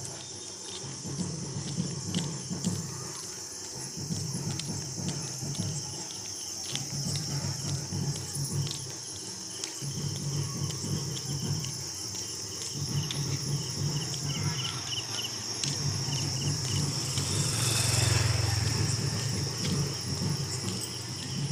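Crickets chirring in a steady, continuous high trill, with a low rumble that comes and goes underneath and scattered light clicks.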